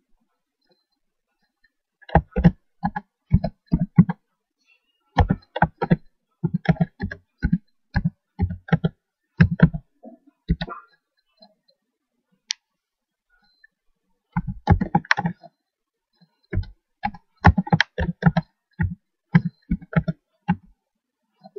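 Computer keyboard being typed on in quick runs of keystrokes. A lull of a few seconds falls in the middle, broken by one lone sharper click.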